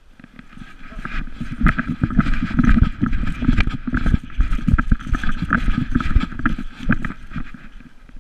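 A collar-mounted GoPro on a running Irish wolfhound, jostled with each stride: rapid, uneven thumps and rubbing that build about a second in and ease off near the end as the dog slows.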